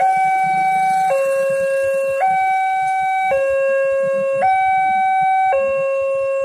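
Railway level-crossing warning alarm sounding a loud two-tone electronic signal. It alternates between a higher and a lower note, each held about a second, warning that a train is approaching.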